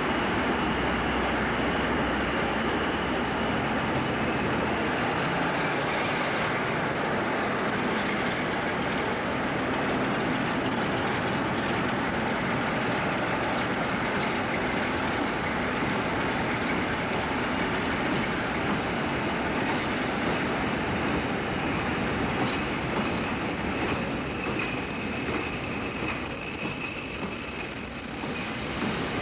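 British Rail Class 47 diesel locomotive passing at the platform with a train of vans: its Sulzer engine running and the wheels rumbling over the rails. A steady high-pitched wheel squeal sets in about four seconds in and carries on with short breaks.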